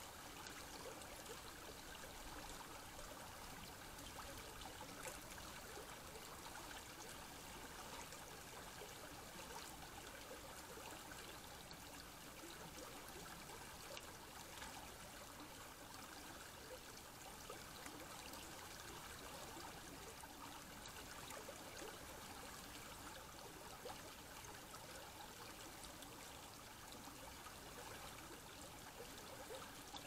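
Faint, steady trickle of stream water.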